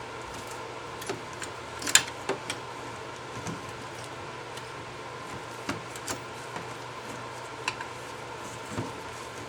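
Scattered light clicks and knocks as front disc brake pads are worked out of the caliper, the loudest about two seconds in, over a steady background hum.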